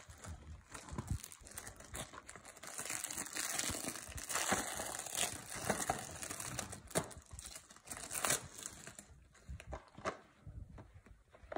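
Clear plastic shrink wrap being torn and peeled off a Blu-ray case, crinkling and crackling with many small snaps. It is busiest through the middle and dies down near the end.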